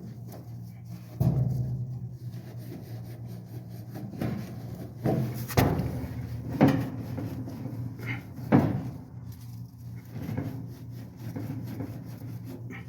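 Handling noise from wiping oiled dryer drum support wheels with a rag: soft rubbing with several sharp knocks as the parts are moved and set down, over a steady low hum.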